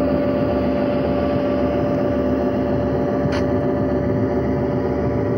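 Diesel passenger locomotive engine sound running steadily: a droning hum with a held tone over it, as the streamlined diesel pulls its train slowly along.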